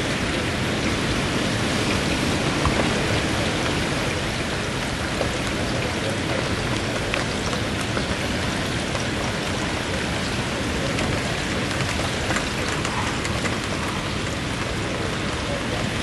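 Steady hurricane rain falling on lawns and wet pavement, with wind, and a few faint ticks of single drops through the even hiss.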